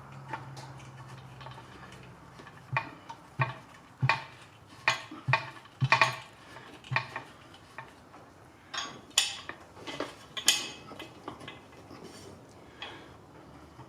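Small metal parts clinking and knocking together as they are handled and set down, a dozen or so irregular sharp clinks in the middle of the stretch over a faint steady hum.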